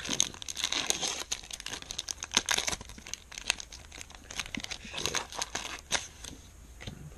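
Foil booster pack of Pokémon trading cards being torn open by hand, the wrapper crinkling and crackling in quick irregular bursts as the cards are pulled out.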